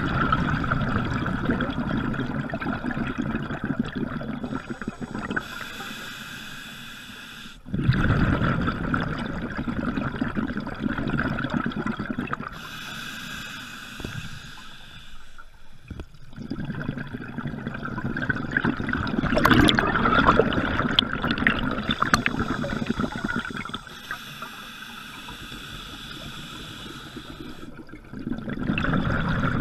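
Scuba diver breathing through a regulator underwater: long rushes of exhaled bubbles, three of them, with quieter stretches of thin hissing inhalation between, and a fourth exhalation starting near the end.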